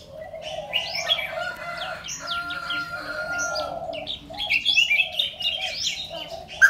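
Several birds chirping and calling over one another: many short rising and falling chirps and whistles, over a lower, steady warbling call.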